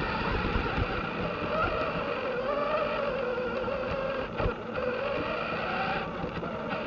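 Losi Rock Rey RC rock racer's electric motor and drivetrain whining, the pitch rising and falling with the throttle, over a rough rumbling noise, with one sharp knock about four and a half seconds in.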